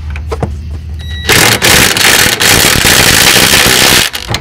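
Ryobi cordless power tool running hard on a motor-mount bolt through a long socket extension, tightening it down. It starts about a second in, runs loud for about three seconds and cuts off suddenly near the end.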